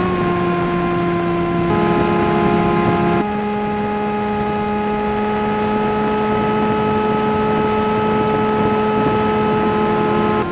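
Bix3 RC plane's brushless electric motor and pusher propeller running with a steady hum, heard from the onboard camera together with wind rush. The pitch steps up slightly about two seconds in and holds there.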